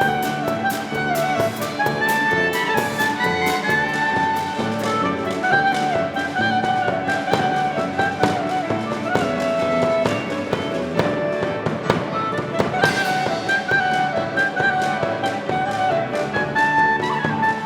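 Klezmer ensemble playing a lively tune: clarinet and violin carry the melody over piano, acoustic bass and percussion keeping a steady, quick beat.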